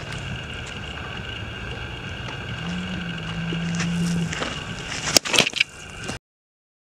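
A pitched baseball smacking into a catcher's mitt about five seconds in, sharp and loud, with a few smaller knocks right after. Before it, steady outdoor background with a low hum that swells for a second or two; the sound cuts off abruptly soon after the catch.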